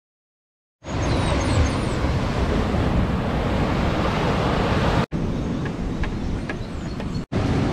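Outdoor rushing noise with a heavy, fluttering rumble of wind on the microphone. It starts about a second in and is broken twice by sudden brief dropouts at edit cuts. A few faint high chirps come near the start.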